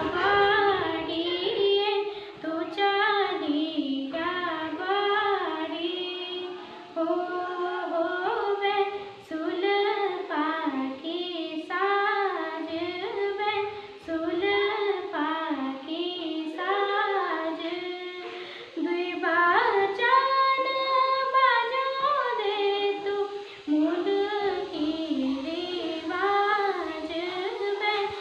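A girl singing solo without accompaniment, a melodic song in phrases of about two seconds with short breaths between, holding some notes longer near the middle.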